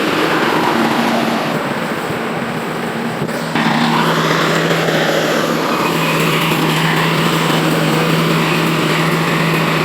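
Rice combine harvester running: a loud, steady engine drone with mechanical noise, stepping up suddenly in loudness about three and a half seconds in.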